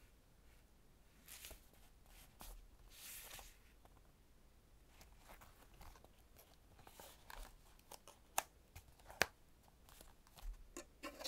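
Faint paper rustling as notebook pages are turned and the journal is closed, followed by handling of the fabric cover and two sharp clicks about three-quarters of the way through as the elastic closure cord is pulled around and let go against the cover.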